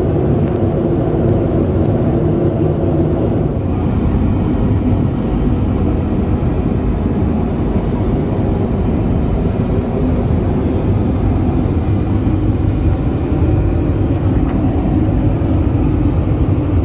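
Steady rumble and rush of an Airbus A330-200 cabin in flight, strongest in the low range, with a little more hiss from about three and a half seconds in.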